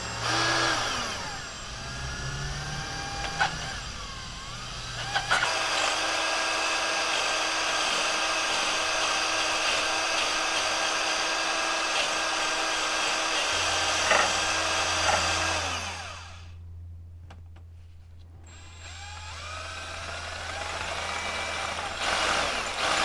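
Ryobi 18V cordless drill boring out a broken stud in a Chevy 350's exhaust manifold flange, widening the hole with a larger bit. The motor speeds up and slows with the trigger at first, then runs steadily. It drops off for about two seconds around two-thirds of the way through, then winds back up near the end.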